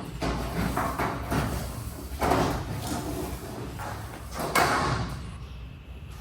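Metal garage door and its hardware rattling and scraping as it is worked on, a series of knocks and scrapes, the loudest about two and four and a half seconds in.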